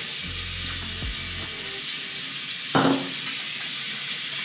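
Steady sizzling hiss, as of food frying in a pan, with one short louder sound about three seconds in.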